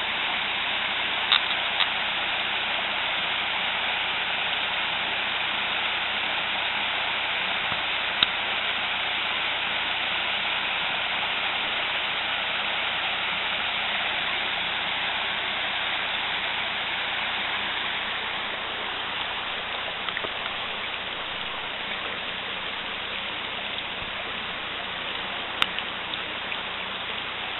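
Shallow rocky creek running over small cascades and ledges: a steady hiss of rushing water that eases a little in the second half, with a few faint clicks.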